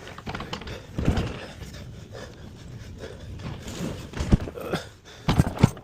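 Scattered knocks and thumps of appliance handling, loudest in a quick cluster near the end, with heavy breathing from the exertion.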